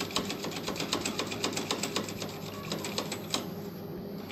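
Quick, uneven clicking and rattling of plastic parts as a rolled cloth is rubbed back and forth at a MOB sensor inside a Xerox copier, stopping about three and a half seconds in.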